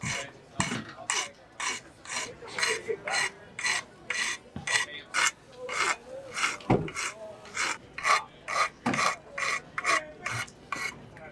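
Flat hand file stroked repeatedly across the end of a threaded bicycle fork steerer tube, a dry metal rasp at about two strokes a second.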